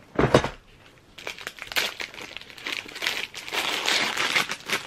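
A short knock about a quarter second in, then the crackling crinkle of a mini ice cream cone's wrapper being torn and peeled off.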